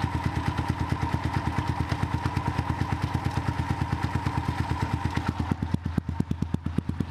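Single-cylinder four-stroke engine of an SSR Razkull 125 running at idle with a rapid, even exhaust beat, as its Mikuni carburettor's air screw is turned a full turn in, richening the mixture into the tens:1 air-fuel ratio and cutting power. A steady whine runs alongside and stops about five and a half seconds in.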